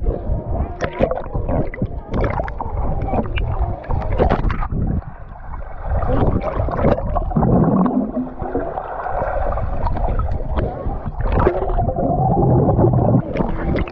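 Swimming-pool water heard through a GoPro, muffled as if underwater: a dense run of bubbling and knocks, with a low, muffled rising tone around the middle and a low hum for a few seconds near the end.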